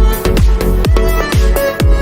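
Background electronic dance music with a steady four-on-the-floor kick drum, about two and a half beats a second, under synth notes.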